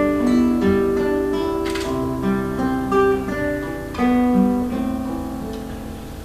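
Nylon-string classical guitar being fingerpicked, single notes ringing into each other as slow broken chords. A fresh chord is plucked about four seconds in, and the playing slowly fades toward the end.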